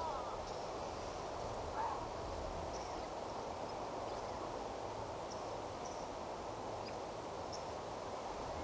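Steady outdoor hiss with faint, scattered high chirps of birds or insects, and one brief call about two seconds in.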